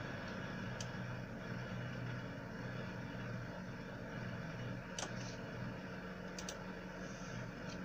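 Ig-Max 1607 500W PC power supply running, a steady fan hum and whir, with a few faint ticks.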